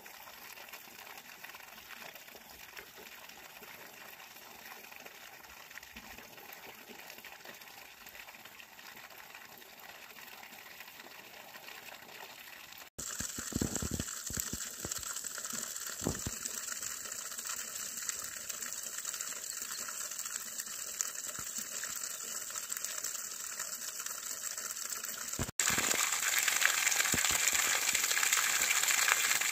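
Water pouring steadily from a fountain trough's pipe outlet and splashing onto the rock below. It grows louder in two steps, about halfway through and again near the end.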